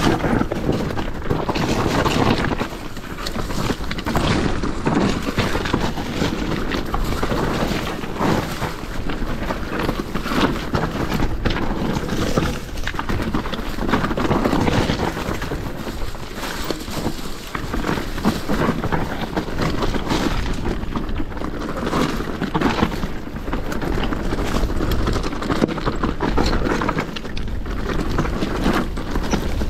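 Commencal Meta SX V4 enduro mountain bike descending a rough trail at speed: tyres on dirt and stones with a constant rush, and frequent sharp knocks and rattles from the bike over rocks and roots.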